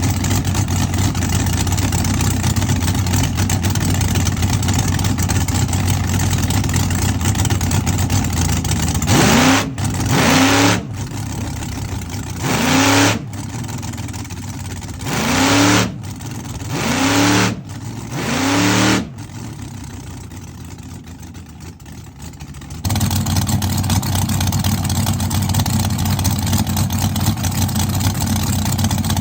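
Drag car engine running, with a burst of about six quick throttle blips in the middle, each a short rise and fall in pitch. Steady loud engine noise before and after cuts in abruptly.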